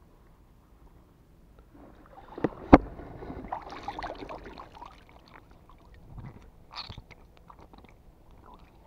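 Water splashing close by while a catch is handled at the surface, with a sharp knock a little under three seconds in and scattered clicks and rustling after it.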